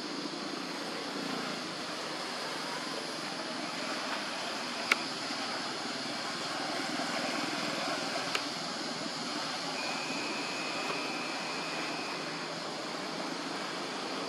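Steady outdoor background noise, a hiss with a low rumble like distant traffic or an aircraft. Two sharp clicks fall about three and a half seconds apart, and a thin steady high tone sounds for a few seconds later on.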